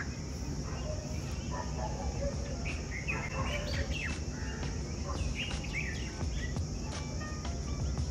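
Outdoor birdsong: several birds chirping and calling in short, scattered notes, over a steady low rumble and a constant high hiss.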